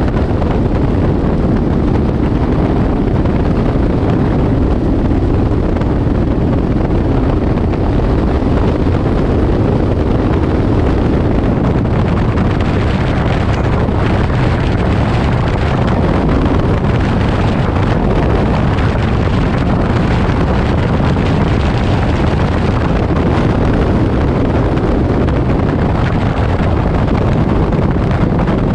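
Light aircraft in flight: a steady, loud drone of engine and rushing air, with wind noise on the microphone.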